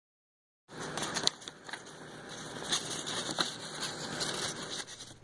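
Close-up handling noise: a crackling, rustling scrape with a few sharp clicks, starting suddenly about two-thirds of a second in.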